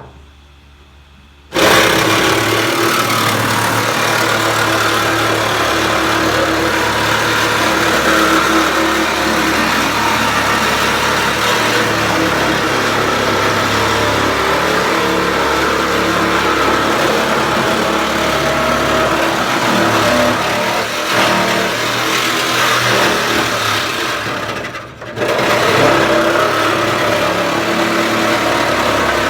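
A power cutting tool running loud and steady as it cuts through the sheet metal of a pickup truck bed. It starts up about a second and a half in, cuts out briefly near the end and starts again.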